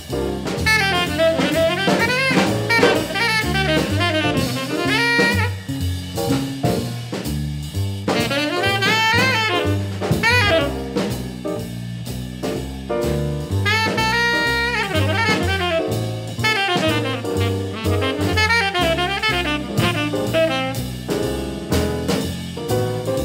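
Hard-bop jazz quintet recording: a tenor saxophone solos in fast runs of notes over walking bass and drums.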